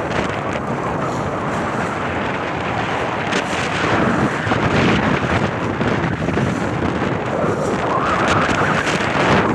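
Wind buffeting the microphone aboard a boat under way, over the wash of water, in a steady rush; it gets a little louder about four seconds in.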